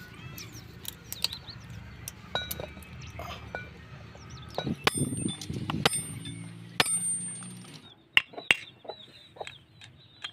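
Sharp metallic clinks and taps of steel tools and parts being handled while a tractor's crown wheel is fitted onto its differential case, over a steady low hum that stops about eight seconds in. Bird calls chirp in the background.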